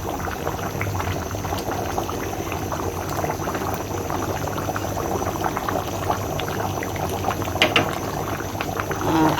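Pot of rice, chicken and water at a rolling boil, bubbling and crackling steadily.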